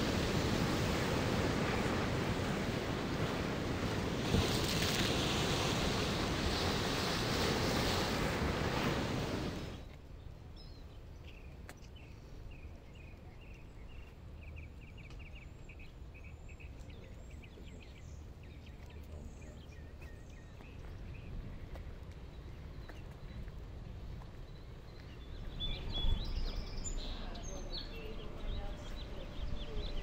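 Ocean surf breaking and washing over a rocky reef, a loud steady rush that cuts off about ten seconds in. Quiet lagoon ambience follows, with a bird repeating a quick run of high notes, and more bird chirps over a louder background near the end.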